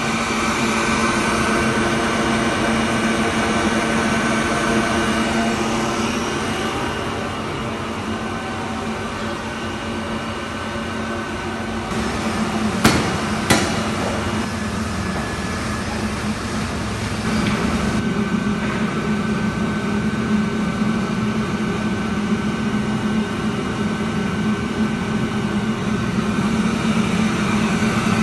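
A Barth Sirocco 200 ball-drum coffee and cacao roaster running with a steady mechanical hum carrying a few held tones. About halfway through there are two sharp knocks, under a second apart.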